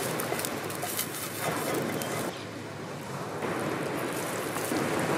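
Sea waves washing onto a sandy beach: a steady rushing noise with small crackles, thinning out for about a second in the middle.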